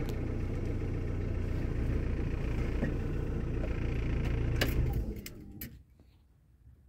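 A motor vehicle's engine running close by, steady and low-pitched, then fading away about five seconds in, with a few light clicks near the end.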